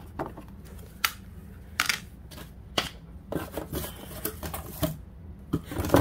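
Hard plastic clicking and rattling as the snap-on back cover of a portable car fridge is unclipped and pulled off its battery compartment, in a series of sharp, irregular clicks, bunched closer together in the second half.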